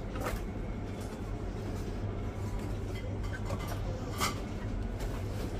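Supermarket aisle background: a steady low hum and rumble with faint light clatter, one short knock standing out about four seconds in.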